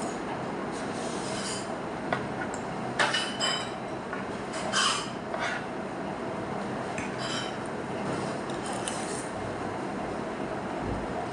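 A metal fork and spoon clink and scrape against a plate as food is scooped up. The sharpest clinks come between about two and five seconds in, over a steady background hum.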